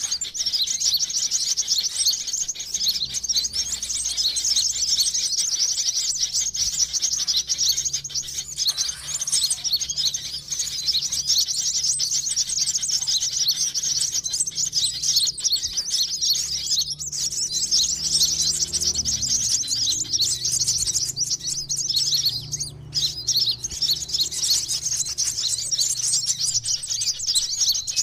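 Sunbirds chirping and twittering in a dense, continuous stream of rapid high-pitched notes: a looped lure-call recording used to draw sunbirds in. The chirping briefly thins about two-thirds of the way through.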